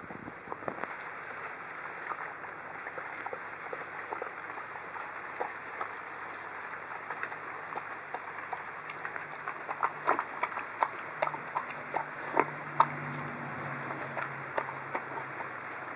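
Samoyed dog eating meat chunks from a plastic bowl: wet chewing and smacking with sharp clicks of teeth and food against the bowl, sparse at first and much busier and louder from about nine seconds in.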